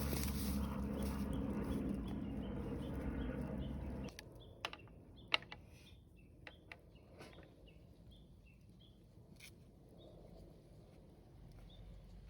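A steady low rumbling noise that stops abruptly about four seconds in. Then short high bird chirps repeat every few tenths of a second, with a few sharp clicks or snaps scattered among them.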